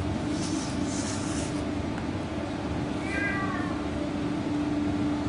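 Steady low machinery hum in a plywood workshop, with large plywood panels rustling and sliding as they are handled in the first second or two. About three seconds in comes a short, slightly falling cat-like meow.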